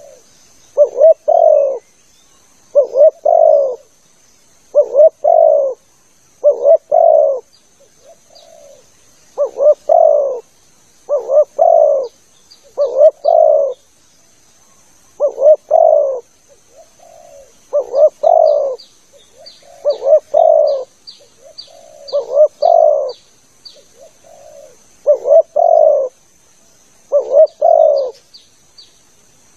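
Spotted dove (tekukur) cooing in short repeated phrases of two or three notes, about one every two seconds, with softer single coos between some of them. This is the territorial call played as a lure (pikat) to draw in wild spotted doves.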